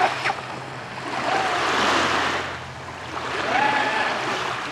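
Rush of waves and wind, with the thin high whine of an RC speedboat's electric motor in the distance. About a second before the end the whine rises in pitch as the throttle opens, holds briefly, then fades.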